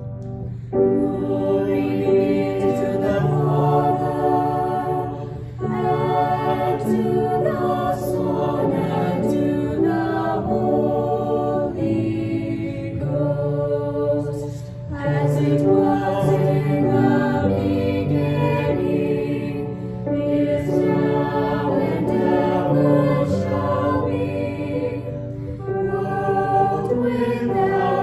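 Music: a choir singing in phrases over a steady low accompaniment.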